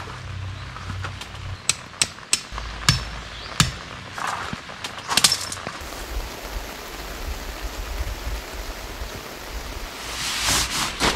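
Steady rain hiss, with a handful of sharp taps about two to four seconds in, another cluster around five seconds, and a louder rustle near the end.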